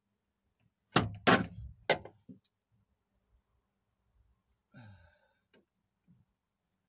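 A quick run of sharp clacks and knocks as tools and the lock actuator and latch assembly are worked at inside a car door, about one to two seconds in, followed by a short sigh of effort near the five-second mark.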